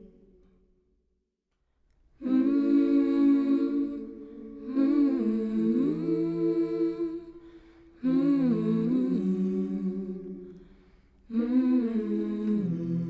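Wordless humming vocal of a slow, gentle song, in four drawn-out phrases with gliding pitch. The humming starts after about two seconds of silence.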